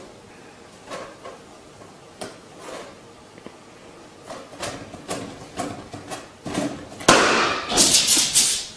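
A cat's paws batting a rubber balloon in a run of irregular soft taps, then about seven seconds in a sudden loud bang as the balloon bursts. Loud noise carries on for about a second and a half after the bang.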